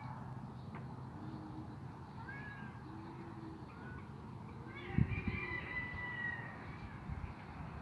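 A few short animal calls, each rising and falling in pitch, the last one longer. There is a sharp thump about five seconds in.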